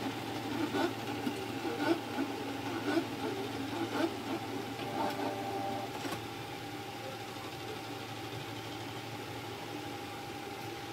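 Canon G-series ink-tank printer's purge pump running in service mode, drawing ink through the tubes during a flush: a steady faint hum with a few light clicks in the first half, then an even hum.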